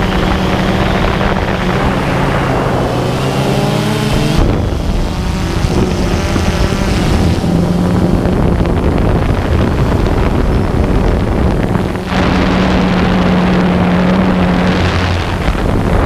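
DJI Phantom 2 quadcopter's motors and propellers humming in flight, the hum stepping up and down in pitch as the motors change speed, mixed with heavy wind noise on the microphone. The sound shifts abruptly about four seconds in and again about twelve seconds in.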